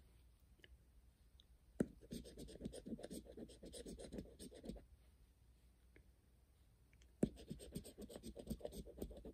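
A coin scratching the coating off a scratch-off lottery ticket in two bouts of quick back-and-forth strokes, each starting with a sharp click.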